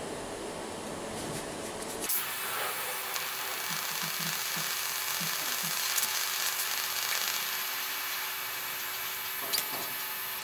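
TIG welding arc on cast iron, run DC electrode negative at about 160 amps on the foot pedal, laying a tack weld. The arc strikes about two seconds in, holds a steady hiss with a faint hum, and cuts off about a second before the end.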